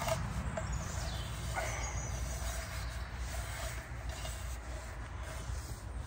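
A burnt camping cook pan being scrubbed with a handful of sphagnum moss: soft rubbing and scraping, with a few faint scrapes or taps, over a steady low rumble.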